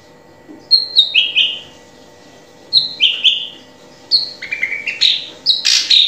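Drongo singing: short phrases of clear whistled notes that step down in pitch, three phrases about one and a half seconds apart, then a busier, louder run of notes near the end.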